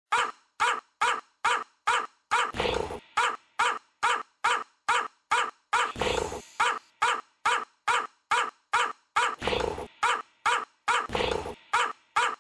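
Small white spitz-type dog barking in short yaps in a quick, even rhythm, about three a second, broken by a few longer drawn-out barks.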